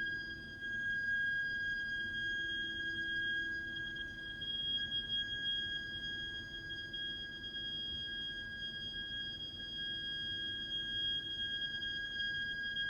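Heat interface unit (HIU) and heating pipework giving a continuous, shrill, high-pitched shriek, steady in pitch, over a faint low hum. It is an abnormal plumbing noise that goes on for hours, even when no hot water or heating is being used.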